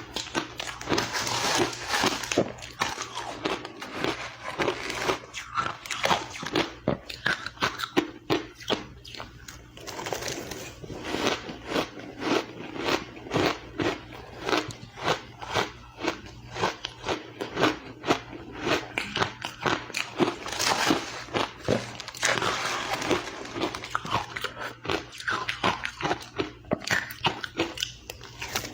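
Ice being bitten and chewed close to the microphone: a dense run of sharp crunches, several a second.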